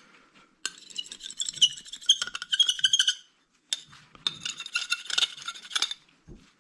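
Screwdriver tip scraping hard across a hard drive platter to scratch up its data surface: two bouts of rough, squealing scratching strokes.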